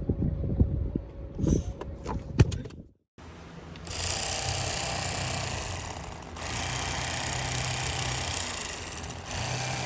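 Irregular knocks and handling bumps. After a sudden cut about three seconds in, a steady engine hum under a broad rushing noise, like a vehicle on the move.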